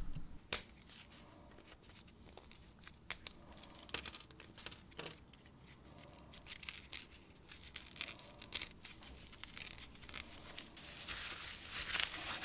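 A small taped copper wire coil being stripped by gloved hands: tape peeled off and thin wire pulled away, with faint scratchy tearing and crinkling and scattered light clicks, busier near the end.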